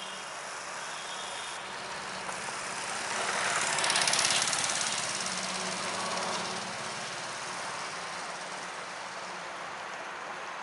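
A motor vehicle passing by: its noise swells to a peak about four seconds in and fades away, over a steady low hum.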